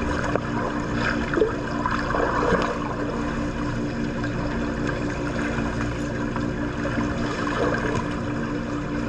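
Water splashing and churning in a swimming pool, with a few louder splashes in the first three seconds, over a steady low hum.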